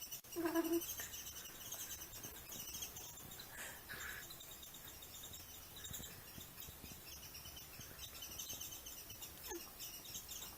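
Small birds chirping in fast, high-pitched repeated trills throughout, with a short, louder low call about half a second in.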